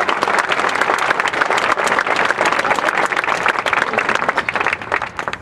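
Crowd applauding after a placement is announced: dense clapping that thins out and fades near the end.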